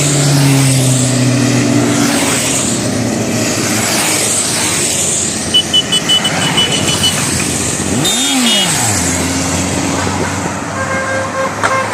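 A procession of motorcycles riding past one after another, engines running as they go by, with a run of short horn toots about halfway through and another horn near the end.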